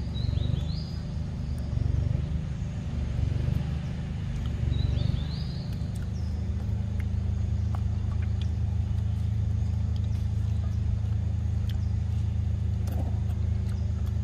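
Steady low mechanical hum of a running motor, with a few short descending bird chirps at the start and again about five seconds in.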